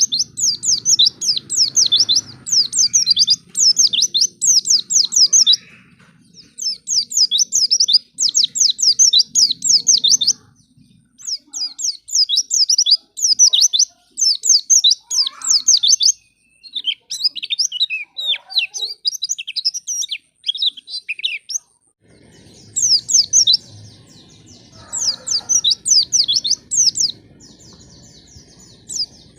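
White-eye (pleci) singing: rapid runs of high, quickly falling chirps in bursts of a few seconds with short breaks, a lure song used to set other pleci singing.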